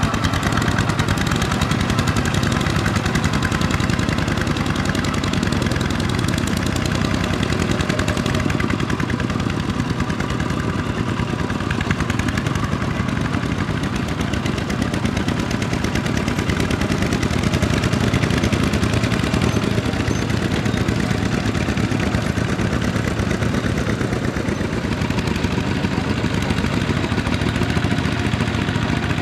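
Two-wheel walking tractor's single-cylinder diesel engine running steadily under load as it pulls a disc plough through wet, cloddy paddy soil, with a fast, even beat of firing strokes.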